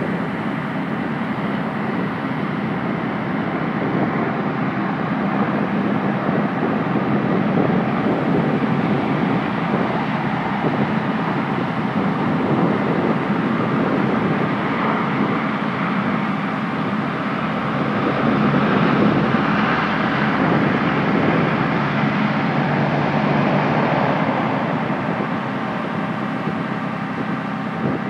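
A Marine light armored vehicle (LAV) running steadily while driving on sand, heard from on board. The sound swells somewhat about two-thirds of the way through.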